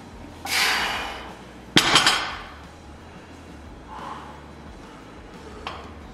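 Barbell weight plates clanking: a sharp metallic clank with ringing about two seconds in, after a brief rushing noise. A light click comes near the end.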